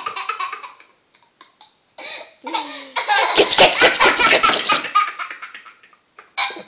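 Toddler laughing in fits: a burst fading out right at the start, a pause, then a long run of quick laughter about two and a half seconds in, with one more short burst near the end.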